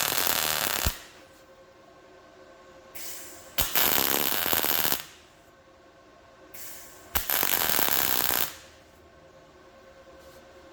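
Three bursts of MIG welding, each about a second and a half long, spaced a couple of seconds apart. Each burst starts with a sharp click and crackles steadily, then stops.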